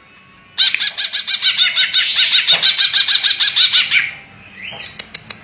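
Cucak ijo (green leafbird) singing a loud, rapid run of repeated arched whistled notes, about seven a second, which stops about four seconds in. Sharp, evenly spaced clicks follow near the end.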